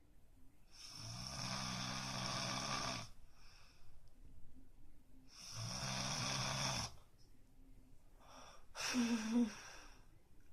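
A person snoring in his sleep: two long snores of about two seconds each, softer breaths between them, and a shorter, louder snore near the end.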